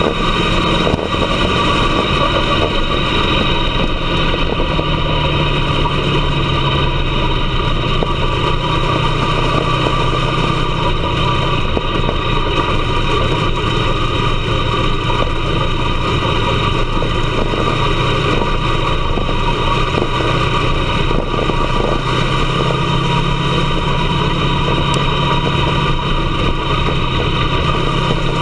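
Dirt-track race car's engine running steadily without hard revving, heard from inside the cockpit; its pitch eases down a little partway through and rises again near the end.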